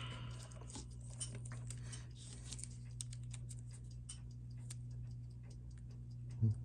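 Scattered light clicks and crinkles from a small black plastic parts bag being handled and worked open, with a brief rustle in the first second and another around two seconds in, over a steady low hum.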